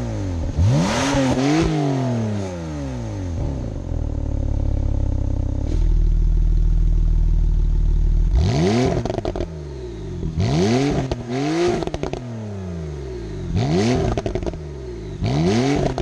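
Porsche 911 Targa 4S (991.2) 3.0-litre twin-turbo flat-six revved in repeated blips, each rising and falling in pitch. There is a steadier, deeper stretch between about four and eight seconds in. The sport exhaust is closed at the start.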